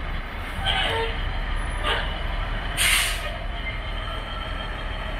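Idling diesel engines of a line of concrete mixer trucks, a steady low rumble, with several short hisses of compressed air from the trucks' air brakes; the longest and loudest hiss comes about three seconds in.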